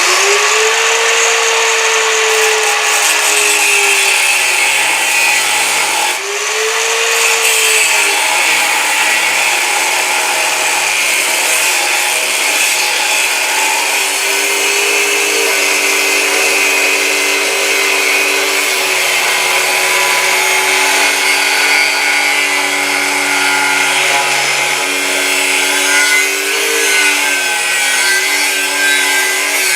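Lepse MShU-0.8-125 800 W angle grinder with a 125 mm disc running continuously as it works a workpiece. The motor's pitch sags a few seconds in, picks up again, sags once more, then holds fairly steady with small dips as the disc is loaded.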